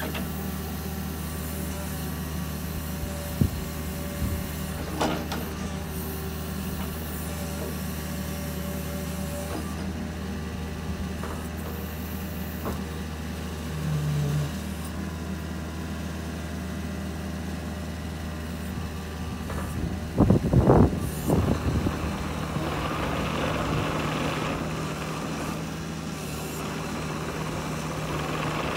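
Kubota KX71-3 mini excavator's diesel engine running steadily under hydraulic work as the arm and bucket move, with a few clicks. About two-thirds through comes a cluster of loud knocks, followed by the machine travelling on its tracks.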